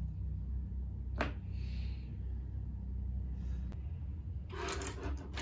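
Low steady room hum with small handling noises of art supplies on a desk: a single sharp click about a second in and a brief rustle near the end.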